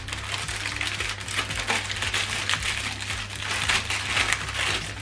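A small battery packet crinkling as it is handled and pulled open by hand: a continuous, irregular crackle with louder flurries.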